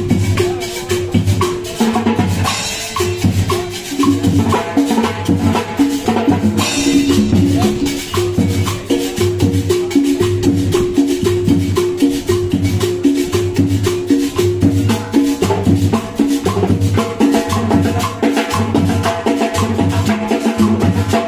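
Marching band playing, with a steady bass drum beat a little over once a second, snare and percussion, and a melody over it. Cymbal crashes come about two and a half seconds in and again about seven seconds in.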